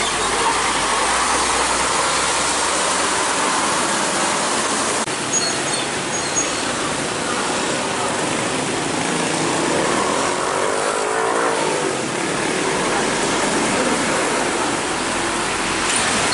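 Steady road traffic noise from heavy diesel trucks and motorcycles crossing railway tracks at low speed, their engines running together.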